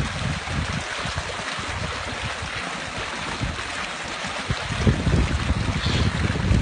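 Small rocky mountain stream rushing over stones, a steady hiss of running water. A low rumble of wind on the microphone joins in about five seconds in.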